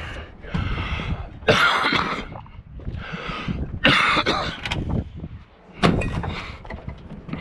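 Scrap metal being handled and tossed out of a trailer onto a scrap pile: clattering bursts and a few sharp knocks, the sharpest about six seconds in.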